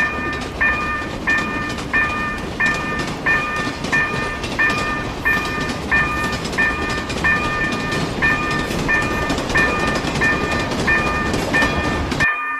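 Japanese level-crossing warning bell ringing its steady "kan-kan" chime, about one and a half strikes a second, over the rumble and clatter of a passing train. Both stop suddenly near the end.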